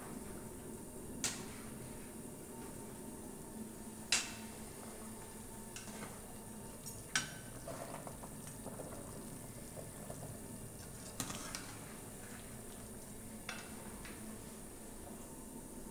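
Pork simmering in water in an aluminium pot, a low steady bubbling, with a metal spoon clinking against the pot a few times as it is worked through the pieces.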